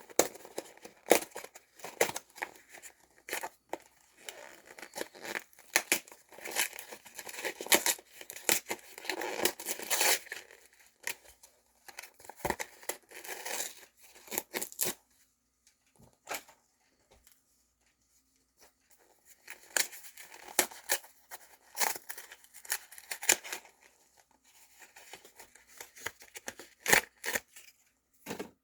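Sock multipack packaging being torn open and handled: irregular tearing and crinkling with sharp clicks, falling quieter for a few seconds midway.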